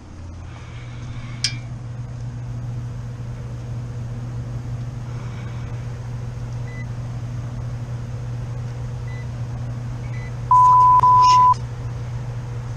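Rooftop HVAC unit running with a steady low hum. Near the end comes a loud electronic beep about a second long, with a brief break in the middle.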